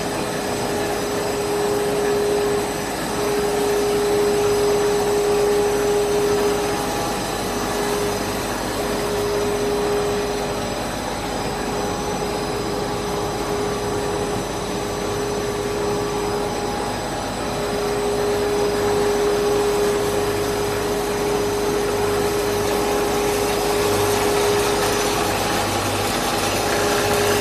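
Five-layer cast stretch film production line running: a steady drone of electric motors, rollers and blowers, with a mid-pitched tone that drops away for several seconds midway and then returns.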